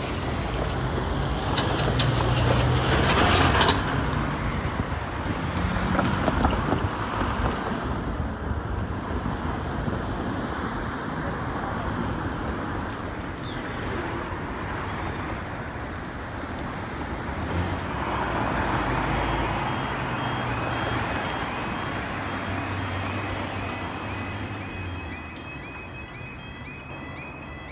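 Road traffic driving over a railway level crossing, with cars passing in swells. Near the end the crossing's warning alarm starts, a fast, evenly repeating electronic tone, as the barriers lower to signal an approaching train.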